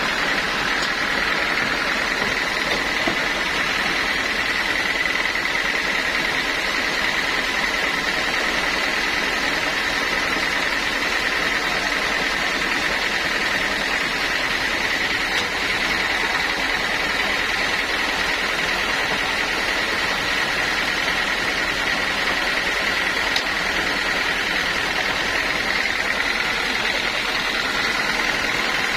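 Sawmill saw running steadily: a constant machine noise with a steady high whine, no break or change in level.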